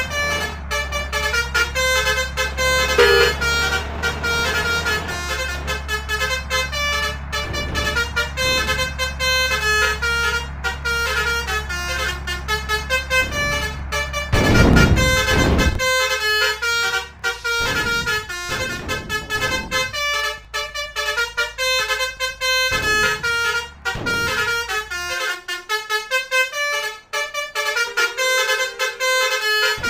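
Basuri musical air horns playing a quick tune of short stepped notes, over a steady low vehicle rumble that fades out about 25 seconds in. There is one loud rush of noise about 15 seconds in.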